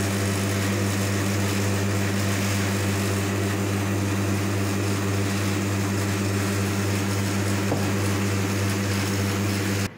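Steady electric hum from an espresso machine, likely its pump, with a hiss over it. It cuts off abruptly near the end.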